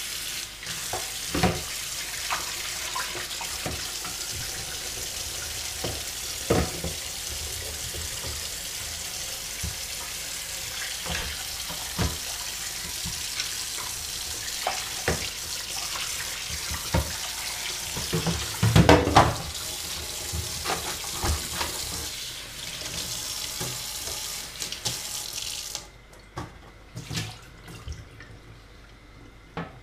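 Kitchen tap running into a stainless steel sink while a plastic tray is scrubbed under it, with scattered knocks of the tray against the sink, the loudest cluster about two-thirds of the way through. The tap is shut off near the end, leaving only a few clatters.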